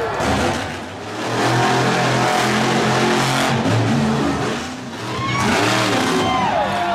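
Monster truck engines revving hard under throttle, pitch rising and falling as the trucks jump and land. The sound eases about a second in and again near five seconds, then climbs back up.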